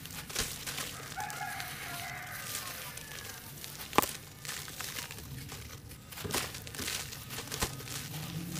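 Hands squeezing and crumbling wet charcoal-ash and sand-cement chunks: gritty crackling and crunching, with bits dropping back into the slurry in the tub and one sharp click about four seconds in. A chicken calls briefly about a second in.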